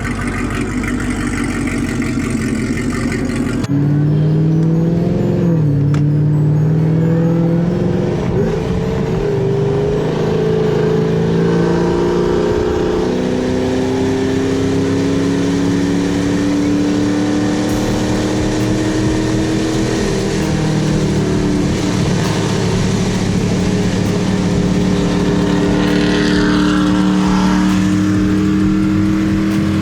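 Supercharged 6.2-litre V8 of a 2020 Chevrolet Camaro SS through an AWE Touring cat-back exhaust, pulling hard. The engine note climbs and drops back at each upshift, then holds a steady, slowly rising drone at speed.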